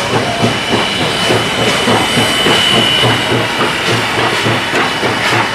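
Passenger train rolling across a steel trestle viaduct, with a dense steady rumble and irregular clicking of wheels over rail joints. A thin steady high tone runs underneath.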